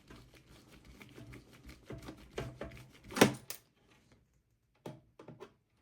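Small clicks and ticks of a Phillips screwdriver turning a small screw inside a desktop PC case, with one louder click about three seconds in. A few scattered clicks follow near the end.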